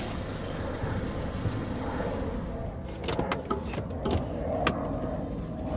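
Car engine idling steadily, with a run of short sharp clicks and taps about three to five seconds in.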